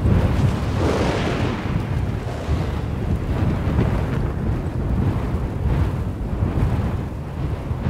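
Rolling thunder: a deep rumble swells in the first second or so, then keeps rolling on low and heavy.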